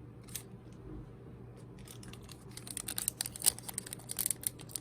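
Wrapper of a Pokémon trading card pack crinkling and tearing as it is handled and opened, a quick run of faint crackles that grows busier after about two and a half seconds.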